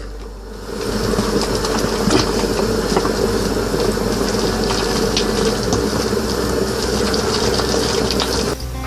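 An electric kitchen mixer runs steadily, beating an egg into mashed potato. It switches on about a second in and cuts off just before the end.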